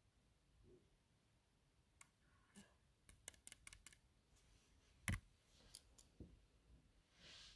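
Near silence: room tone with a few faint, scattered clicks, the sharpest about five seconds in, and a soft hiss near the end.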